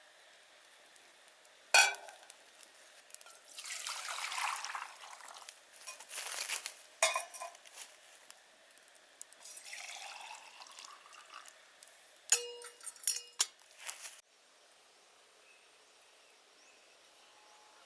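Liquid pouring and glassware or dishes clinking: a knock, a pour, scattered clinks, then a quick run of ringing clinks about twelve seconds in, after which the sound drops suddenly to a low hiss.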